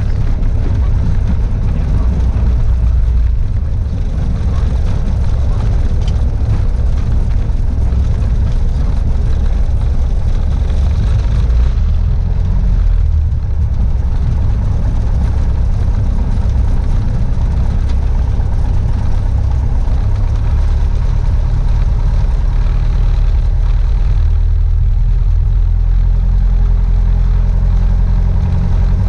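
Piper Warrior II's four-cylinder Lycoming piston engine and propeller running at low power while the aircraft taxis, heard from inside the cabin as a loud, steady drone. In the last few seconds a clearer, even engine note comes through.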